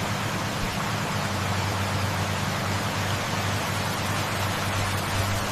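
Machine running steadily: a constant low hum under a loud, even hiss, with no change in pitch or level.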